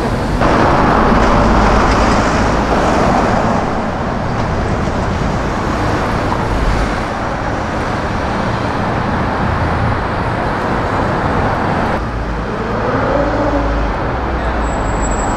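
Street traffic noise: cars and other motor vehicles passing on a busy road, loudest in the first few seconds.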